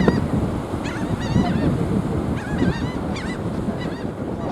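Birds calling, several short wavering cries in quick runs, over the steady rush of ocean surf and wind.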